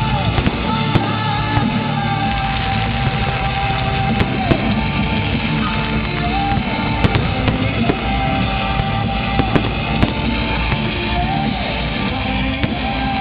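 Loud rock music with an electric guitar lead playing through a fireworks display, with about half a dozen sharp firework bangs cutting through it.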